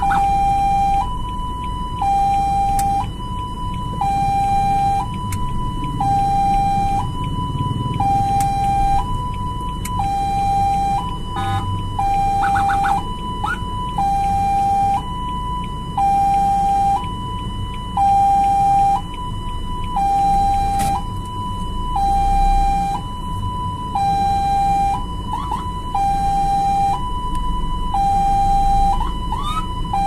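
Ambulance siren sounding a two-tone hi-lo wail, switching between a lower and a higher note about once a second. A low vehicle rumble runs underneath.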